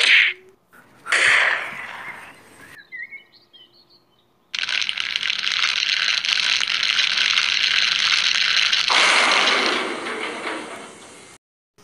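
Added battle sound effects: a sharp gunshot-like crack right at the start and another about a second later that dies away. From about four seconds in, a steady hissing, crackling noise of fire or an explosion shifts lower and duller near the end and fades out.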